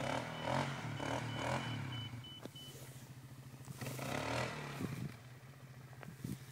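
Polaris Scrambler 500 4x4 ATV's single-cylinder four-stroke engine heard at a distance, revving up and down as it rides. It is louder during throttle bursts near the start and again about four seconds in.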